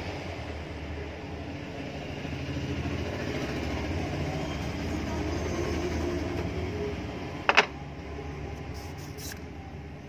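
A steady low background rumble, swelling a little in the middle. About 7.5 seconds in there is a single sharp clack as the mixer grinder motor's metal parts are handled.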